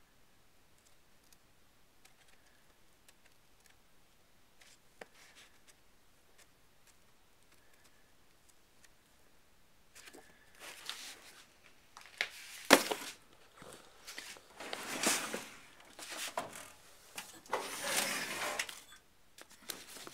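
Near silence at first, then paper pages rustling and shuffling in several bursts as sketchbooks are handled and leafed through, with one sharp knock a little after halfway.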